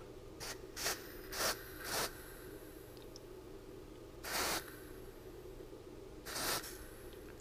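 Freeze spray hissing from an extension straw in short bursts: four quick squirts, then two longer ones. It is chilling the main board's tantalum capacitor and 3.3 V buck regulator to bring back the cold-start fault.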